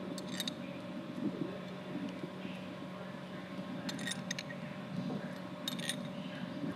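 Metal tool and fitting clinking in three short bursts of sharp clicks, at the start, about four seconds in and near six seconds in, as a small steel hex nipple is worked off a hydraulic cylinder pad. A steady low machine hum runs underneath.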